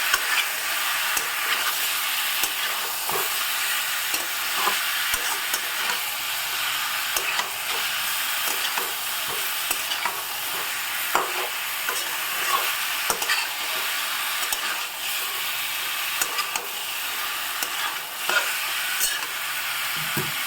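Chicken pieces and spices sizzling as they fry in mustard oil, stirred in the pan, with many short clicks and scrapes of the stirring utensil against the pan.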